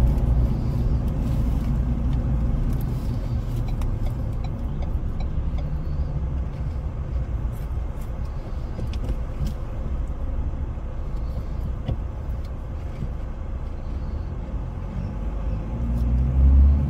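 Road and engine noise inside a moving car's cabin: a steady low rumble that grows louder near the end.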